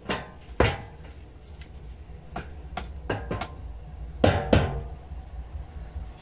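Wooden beehive frames knocking and clattering against a metal drum as they are lifted out of a steam wax melter, several sharp knocks with the two loudest close together near the end. A high wavering squeak starts about half a second in and lasts some two seconds.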